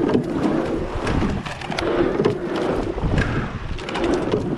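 Racing coxed rowing eight at full pressure: oars knock in their gates and seats roll on their slides, about one stroke every two seconds, over rushing water and wind on the microphone.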